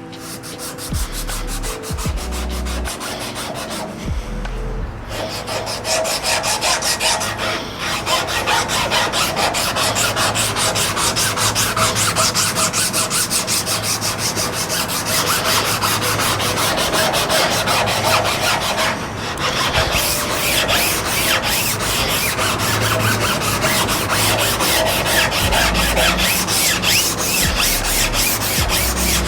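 240-grit abrasive rubbed by hand over a rusty metal lathe bed in quick, repeated scrubbing strokes, taking off surface rust, with a few short pauses.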